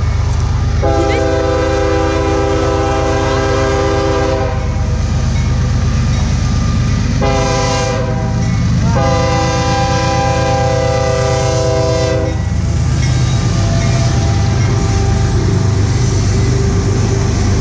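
Locomotive multi-chime air horn sounding a long blast, a short blast and another long blast as a crossing warning, over the steady low rumble of the diesel locomotives. After the last blast the engines pass close by and their rumble grows louder.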